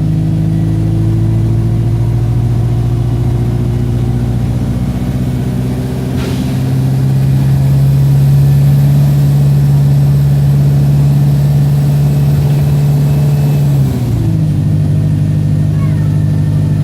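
Wright StreetLite single-deck bus's diesel engine pulling under load, heard from on board, a low steady drone whose pitch climbs slowly. About six seconds in there is a short sharp noise and the engine gets louder; around fourteen seconds the engine note dips sharply and then climbs again. The bus is running in limp mode and 'not sounding too good'.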